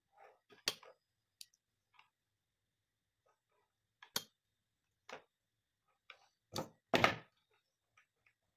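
Scattered clicks and knocks of a soldering iron's plastic handle and metal barrel being handled and fitted together during reassembly. A few sharp taps, the loudest a longer knock about seven seconds in.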